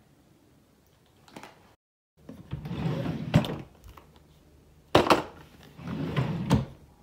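A wooden drawer sliding on its runners, twice, with sharp knocks as it bumps, and a hard thud between the two slides.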